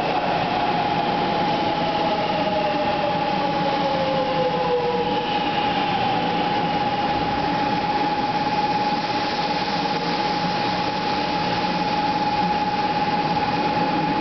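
500 Series Shinkansen train (7000 subseries) rolling slowly along the platform as it comes to a stop: steady running noise with a high tone held throughout. A motor whine falls in pitch over the first five seconds as the train slows.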